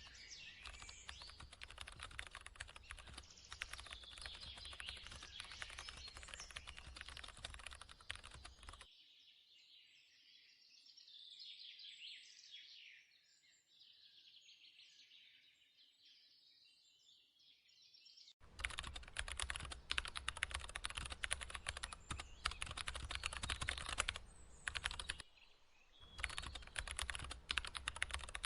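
Rapid computer keyboard typing. It stops for about nine seconds in the middle, leaving only birds chirping, then starts again.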